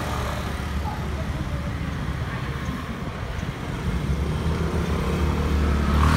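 City street traffic: scooter and car engines running and passing, a steady low rumble that grows louder over the last two seconds.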